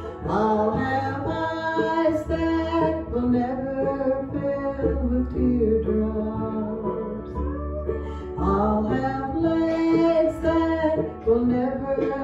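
A woman singing a gospel song into a microphone over instrumental accompaniment, holding long notes that glide between pitches.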